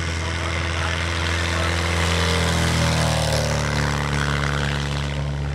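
Propeller-driven aerobatic biplane's engine at full takeoff power as it rolls down the runway, growing louder, then dropping in pitch as it passes about three seconds in.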